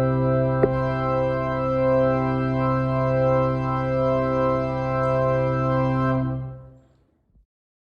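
Church organ holding a single sustained chord with a strong bass note, which dies away about six and a half seconds in: the final chord of the postlude. There is a small click near the start.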